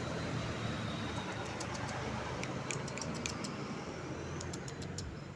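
Steady background hum of traffic and street noise. From about a second and a half in, a scatter of short, high ticks sits on top of it.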